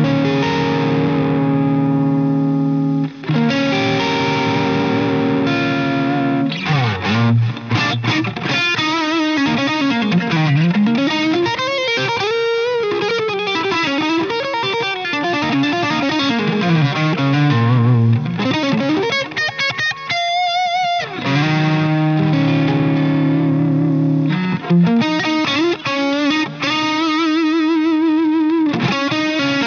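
Electric guitar with P90 pickups (a Reverend) played through a Dover DA-50 amplifier head with overdrive: held chords ring out first, then lead lines with notes sliding up and down in pitch, and wavering vibrato on held notes near the end.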